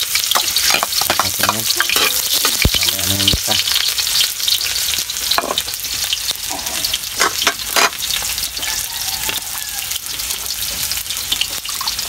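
Sliced onion and garlic frying in hot oil in a wok: a steady sizzle with irregular sharp pops.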